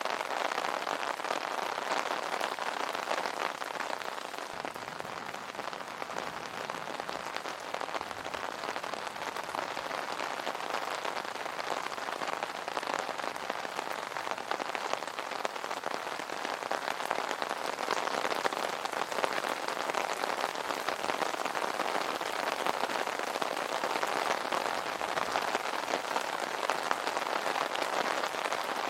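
Steady rain falling on an umbrella canopy: a dense, even hiss made of many small drop ticks.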